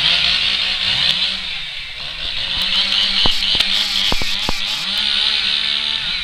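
Chainsaw engine running and being revved, its pitch rising and falling again and again over a high buzz, with a few sharp clicks about halfway through.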